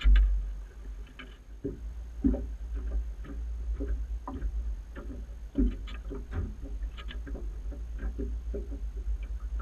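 Irregular light knocks and taps carried through the hull of an Albion Pacific plywood power dory afloat, a few a second, over a low steady rumble.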